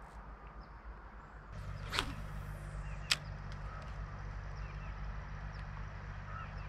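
A fishing rod cast: a sharp swish of the rod about two seconds in, with line hissing out after it, then a single sharp click about a second later.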